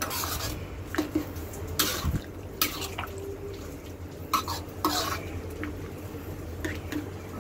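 Metal spoon stirring thick pork menudo stew in a black wok, scraping against the pan in short irregular strokes about every second, over a steady low hum.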